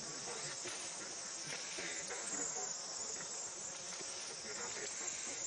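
Insects in the forest making a steady, high-pitched drone that holds without a break.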